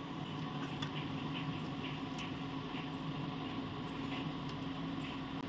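Wet hands squeezing and patting banana-flower vada dough in a steel bowl, with a few soft, scattered clicks over a steady low background hum.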